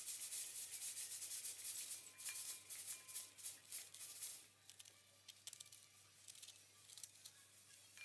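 Kitchen knife shaving a raw cabbage into shreds, a quick run of crisp scraping cuts. The strokes come thick at first, then one by one until about halfway, then grow faint.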